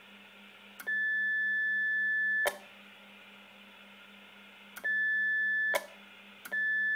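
A 1750 Hz repeater-access call tone sent over 145.600 MHz FM from a Standard C500 handheld. It is a steady high beep three times: about one and a half seconds, then about a second, then a short one near the end. Each beep starts and stops with a click.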